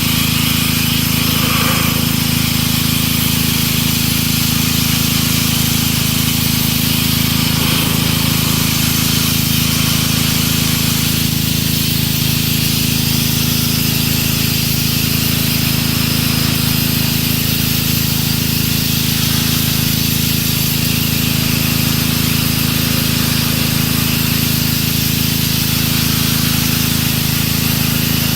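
Pressure washer running steadily: the machine's motor and pump drone under the hiss of the water jet blasting the concrete.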